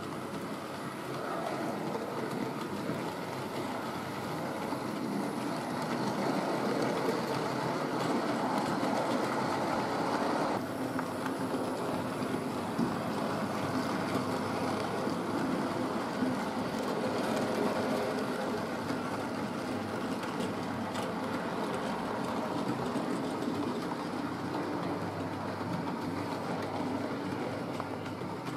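Hornby OO gauge model train, a steam locomotive hauling wagons, running along the layout track. It makes a steady whirring rattle of motor and wheels on the rails, which changes abruptly about ten seconds in.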